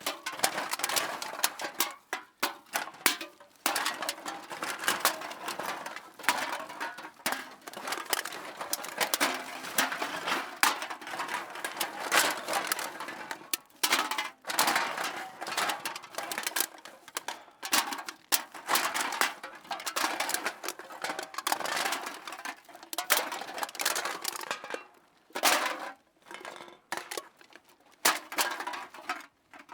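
Metal cans clinking and clattering against each other as they are put into a bag, a dense, irregular run of knocks with a few brief pauses.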